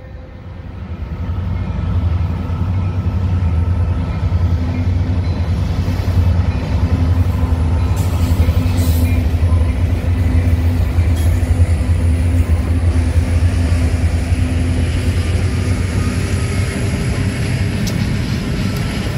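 The trailing diesel-electric locomotives of a long freight train, from a Union Pacific SD70ACe back to a BC Rail Dash-8, passing close by with a steady low engine drone mixed with wheel and rail noise. The sound builds over the first two seconds and eases a little near the end as the last unit goes by and freight cars follow.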